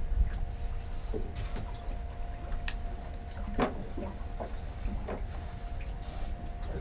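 Sounds on a fishing boat: a steady low rumble with a faint constant hum, and scattered light knocks and taps as gear is handled.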